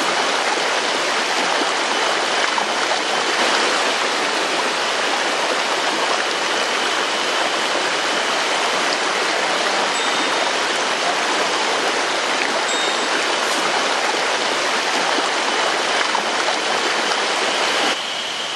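Flowing river water rushing steadily, a little quieter near the end.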